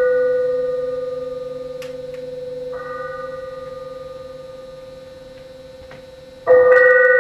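A struck bell-like metal tone, one low steady note with higher overtones, ringing and slowly dying away. A softer strike brings the upper overtones back about three seconds in, and a fresh loud strike comes near the end.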